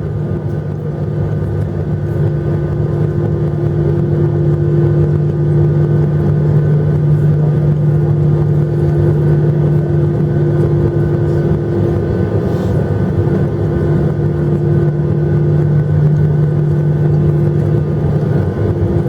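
Steady cabin drone of a Boeing 737-800 taxiing after landing: its CFM56-7B engines at idle and the air conditioning, heard from inside the cabin as a constant low hum. It grows a little louder over the first few seconds.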